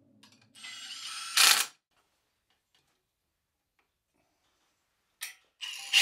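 Ratchet wrench clicking in two short bursts: one about half a second in that ends in a loud snap, and another near the end, with silence between.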